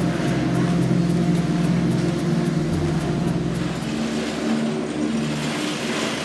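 Gondola lift machinery running: a steady mechanical hum with faint, regular ticking.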